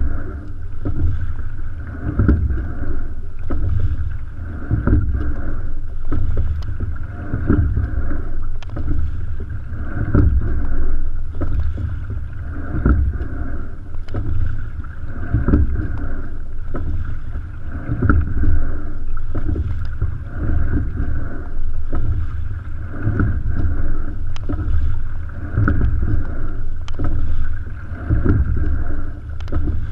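Single scull rowed at a steady pace: water rushing along the hull with a low rumble of wind on the deck-mounted microphone, and a short knock with each stroke, about every two and a half seconds.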